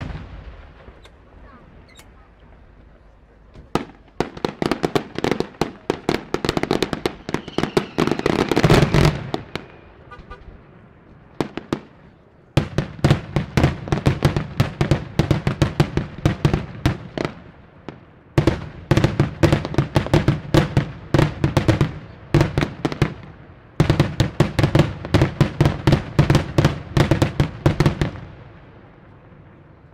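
Daytime fireworks: aerial shells bursting overhead in rapid volleys of sharp bangs, several a second. There are four runs of a few seconds each with short gaps between them; the first starts about four seconds in, and the bangs stop near the end.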